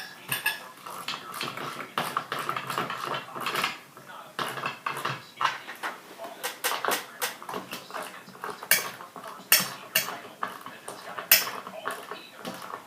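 Irregular clinks, clicks and knocks of small metal fan parts being handled and fitted together while assembling a ceiling fan's light fittings.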